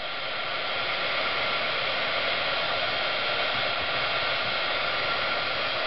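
Embossing heat gun blowing steadily, with an even rush of air and a faint whine, as it melts embossing powder on stamped cardstock.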